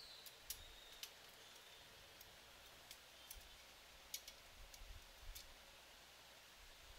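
Faint, sparse clicks and ticks at irregular intervals from nuts and bolts being tightened on a metal robot chassis with pliers and a screwdriver.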